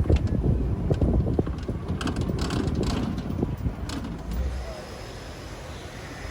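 Safari ride truck driving over a rough track: a low engine and road rumble with knocks and rattles, which fades to a quieter steady noise about four and a half seconds in.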